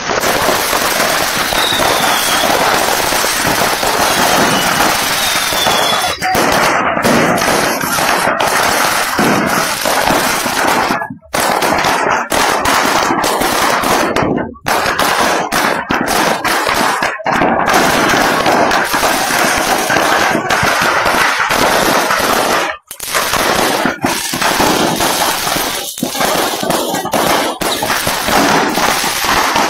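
Stock of a burning fireworks stall going off: firecrackers and aerial shells exploding in a dense, near-continuous crackle of bangs. The sound drops out suddenly for a moment a few times.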